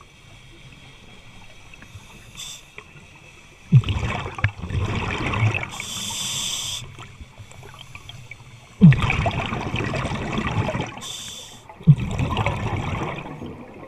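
Scuba diver breathing through a regulator underwater. Three rushes of exhaled bubbles gurgle past, each starting with a sharp burst, with short hissing inhalations between them.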